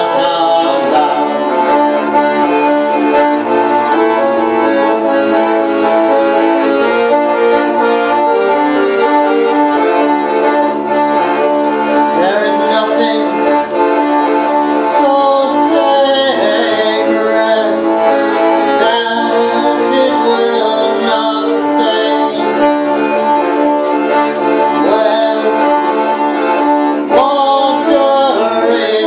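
Folk song played on a piano accordion with a bowed cello, the accordion's held chords carrying the tune. A woman's voice sings in places over the instruments.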